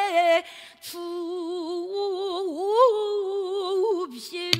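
Female pansori singer holding long, wavering sung notes with strong vibrato, the pitch sliding and bending; she stops for a breath about a second in, then sings on. A single sharp knock near the end.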